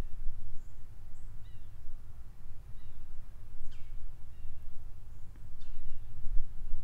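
Outdoor ambience: a steady low rumble with faint, scattered bird chirps, a couple of them quick downward-sliding calls.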